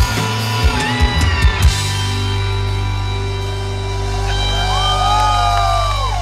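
Live rock band playing amplified through the PA: sharp drum hits through the first couple of seconds, then a held, ringing chord with notes bending up and down over it near the end.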